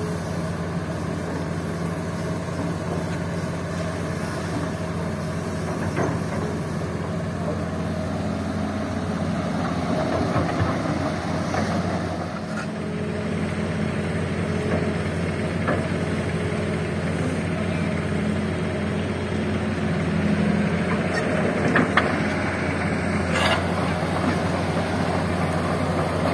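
Hitachi hydraulic excavator's diesel engine running steadily as it loads gravel into a dump truck, with a few sharp knocks.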